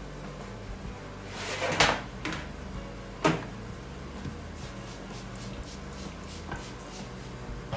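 Wooden rolling pin working dough on a floured work surface: a rising scrape about one and a half seconds in, a sharp wooden knock a little after three seconds, then light taps, over faint background music.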